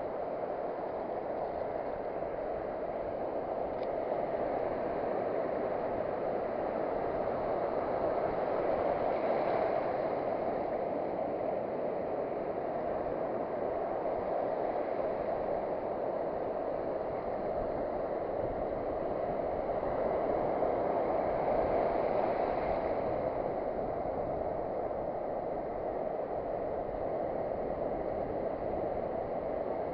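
Steady rush of sea surf on a beach, swelling briefly twice as bigger waves break.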